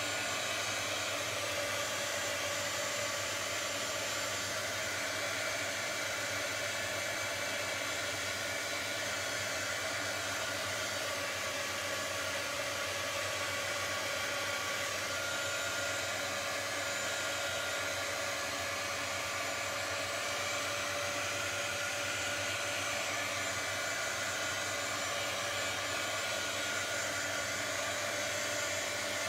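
Handheld craft heat gun running steadily: a rush of blown air with a faint steady whine. It is lightly fusing brushed-on beeswax encaustic paint to smooth out the brush strokes.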